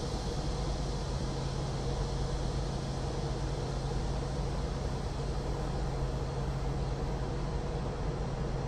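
Steady background noise with a low, even mechanical hum under a constant hiss, with no distinct events.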